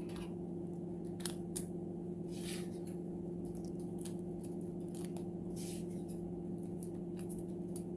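Steel utility-knife blades being slid one at a time into a plastic blade dispenser: a few faint clicks and scrapes, the clearest two a bit over a second in, over a steady low hum.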